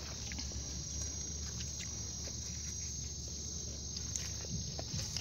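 Insects chirring as a steady high-pitched trill, with a few faint scattered clicks and taps.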